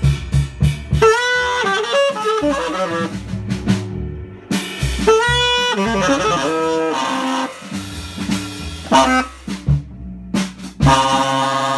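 Prepared tenor saxophone played in a free, improvised style: short phrases with sliding, squealing high notes and gaps between them, ending on a long held note rich in overtones. Drum hits sound along with it.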